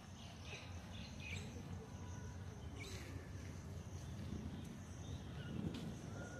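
Outdoor woodland ambience: a steady high insect drone with a few short bird chirps, the first cluster about half a second to a second and a half in, another around three seconds, over a low rumble.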